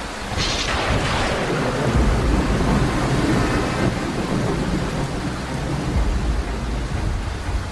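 Hurricane storm noise: heavy rain with a deep, continuous rumble, and a sudden rush of noise about half a second in.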